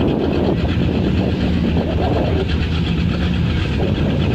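Car engine idling steadily at a drag-strip start line, a low even tone with no revving or launch.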